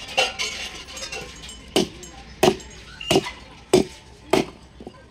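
Five sharp knocks, about two-thirds of a second apart, with a lighter clink near the start.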